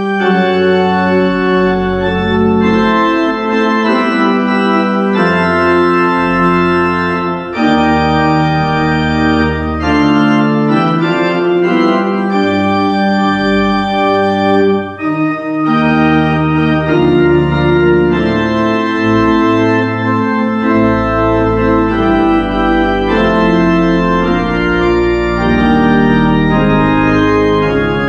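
Church organ playing a postlude: sustained full chords over a low pedal bass, the harmony changing every two to three seconds.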